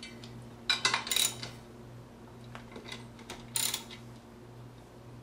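Metal clicks and clinks of a socket wrench loosening the nut on a yarn swift's shaft: a quick cluster about a second in, a few faint ticks, then another short cluster after three and a half seconds.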